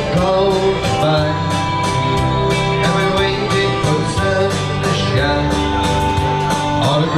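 Live country-style music: two guitars strummed at a steady pulse, with singing.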